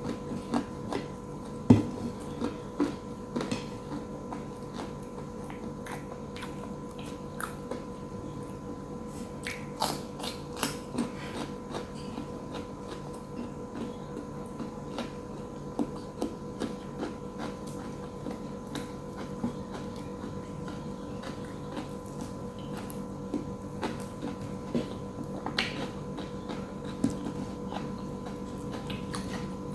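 Close-up eating sounds: chewing, with many short, irregular clicks and crunches, over a steady electrical hum.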